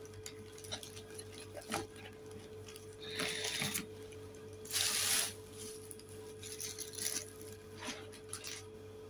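Plastic shopping bag and a clear plastic clamshell of donuts being handled and rustled in several short bursts, the loudest about five seconds in, over a steady faint hum.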